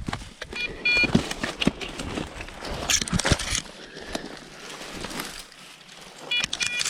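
Crackling, rustling footsteps pushing through dry field cover on a pheasant hunt, with a brief high jingle near the start and again near the end.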